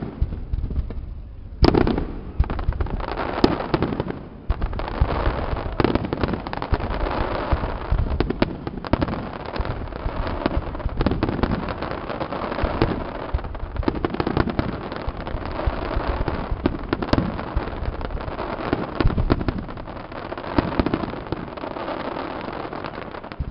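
Fireworks display: aerial shells bursting one after another. A loud bang comes about two seconds in, then a dense, near-continuous barrage of bangs and crackling.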